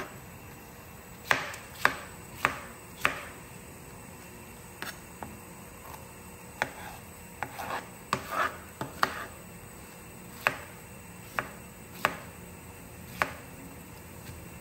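Chef's knife cutting a red bell pepper into chunks on a cutting board: sharp, irregular knocks of the blade against the board. A quick run of four comes in the first few seconds, then the cuts are spaced more widely.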